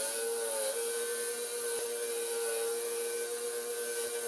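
Angle grinder running with a wire brush wheel scrubbing rust off a steel hatchet head, a steady motor whine under a harsh scraping hiss.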